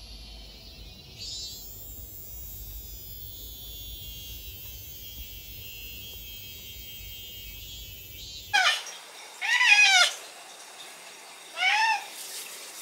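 Cicadas buzzing in a steady high, shrill drone that swells about a second in and cuts off abruptly about two-thirds through. Then a cat meows three times, the middle meow the longest.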